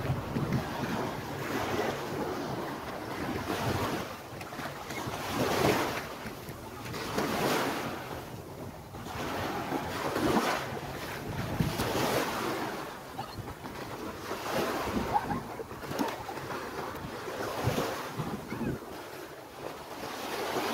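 Small waves breaking and washing up a sandy shore, the surf swelling and fading every couple of seconds, with wind buffeting the microphone.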